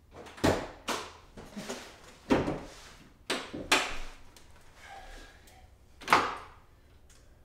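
A series of clunks and knocks as a 2001 Subaru Impreza's hood is unlatched, lifted and propped open. The sharpest knock comes about six seconds in.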